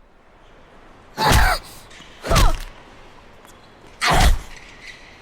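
Three heavy thumps, about a second in, near two seconds and near four seconds, each under half a second long, with a short falling, groan-like tone on top of each.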